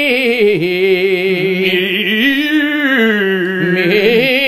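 A man's voice singing a vocal warm-up: one long unbroken vowel held with a wide, fast vibrato, stepping up and down in pitch like a practice scale.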